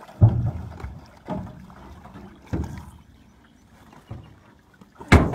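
A handful of dull knocks and bumps on a small boat's hull, spaced about a second or more apart, as a cormorant is hauled aboard with a pole and handled. A louder knock comes near the end.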